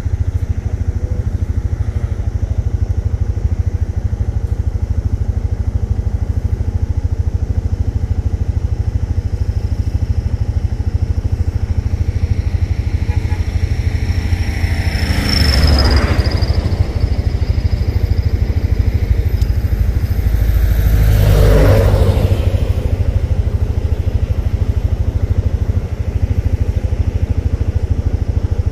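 Auto-rickshaw engine running with a steady low drone, with two louder swells of passing traffic about halfway through.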